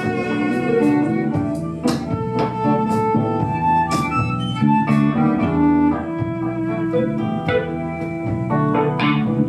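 Live band playing an instrumental passage without vocals, electric guitar among the instruments, with an organ-like sustained keyboard tone.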